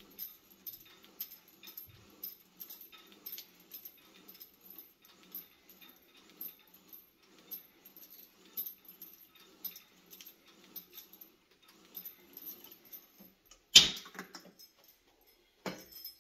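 Chain on a cable machine's tricep pushdown handle jingling with each rep, a short rattle every second or so. About 14 s in there is one loud clank as the handle is let go and the weight stack drops back.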